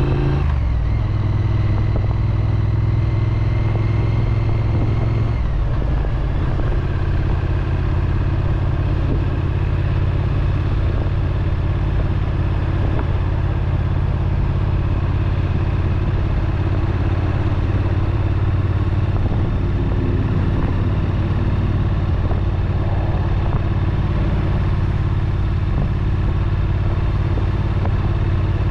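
Triumph Street Twin's 900 cc parallel-twin engine and exhaust under way. The revs drop sharply just after the start and hold level. They drop again about five seconds in, then settle into a fairly steady run.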